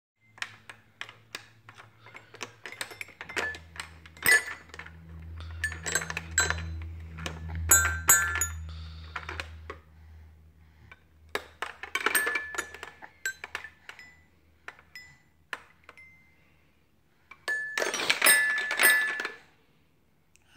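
Toy xylophone's metal bars struck unevenly with a plastic mallet by a toddler: ringing notes in irregular flurries with short pauses, and a fast run of strikes near the end.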